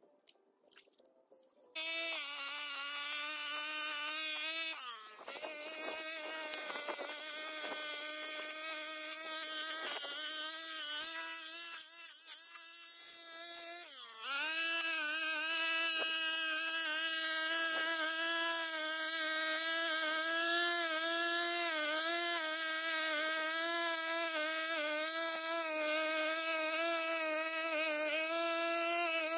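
Backpack brush cutter's small engine running at high revs as it cuts weeds, its pitch sagging under load and recovering, about five and fourteen seconds in. It comes in suddenly at full level about two seconds in.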